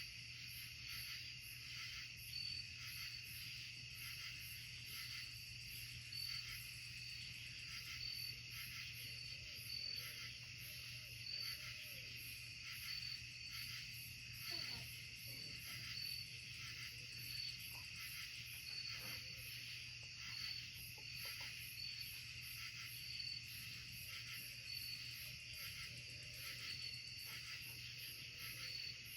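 Night insect chorus in woodland: a steady high trilling with a pulsing call repeating about once a second, over a faint low hum.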